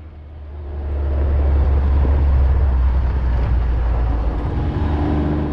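Kawasaki Mule Pro FXR side-by-side driving along a dirt trail: engine and tyre noise with a heavy low rumble, building over the first second or so and easing slightly near the end.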